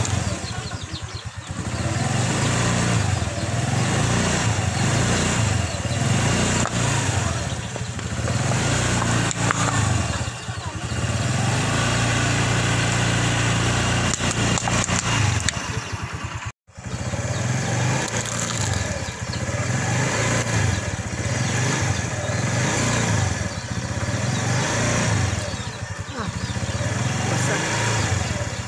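A motorcycle engine runs steadily close by as its front tyre rolls over and crushes plastic cups and bottles of liquid. The sound cuts out for an instant a little past the middle.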